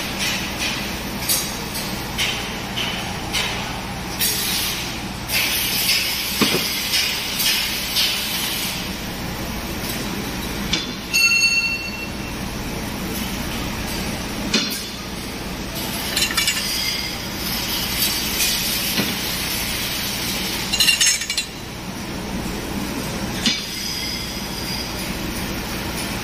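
Heat shrink tunnel's roller conveyor running with a steady machine noise, broken by irregular metallic clinks and clatter as the metal bus bars ride over the rollers. One clink about eleven seconds in rings on briefly.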